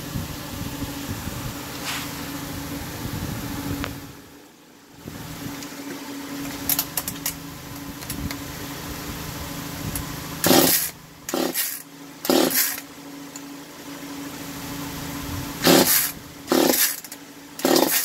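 Two-stroke Echo CS-4500 chainsaw being pull-started by hand: six quick yanks of the recoil starter rope, in two sets of three, and the engine does not catch. A steady hum runs underneath.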